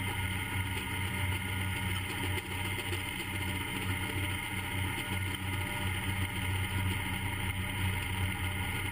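Wood-Mizer LT-50 band sawmill running steadily as its band blade saws through a walnut log that holds a patch of embedded nails, the blade striking the nails as it cuts.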